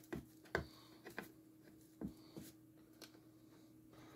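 Light taps and clicks of small black discs being picked up and set down on a round wooden board, about six in four seconds, over a faint steady hum.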